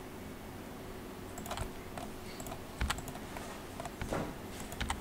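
Computer keyboard and mouse clicks: a few scattered, irregular taps starting about a second and a half in, over a faint steady hum.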